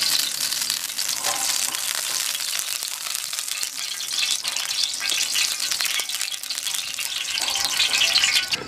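Liquid sizzling and crackling in the bottom of a large, hot aluminium cooking pot, with a steady hiss.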